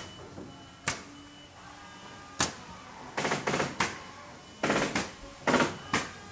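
Metal parts of an old hanging scale being handled: irregular sharp clanks and clicks, single ones and quick clusters, with brief metallic ringing after some of them.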